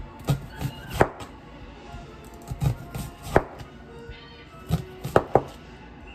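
Chef's knife slicing an onion on a plastic cutting board: sharp knocks of the blade meeting the board, in short irregular runs with pauses between them.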